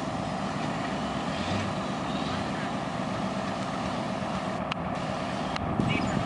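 Caterpillar 215 hydraulic excavator's diesel engine running steadily while it works its boom.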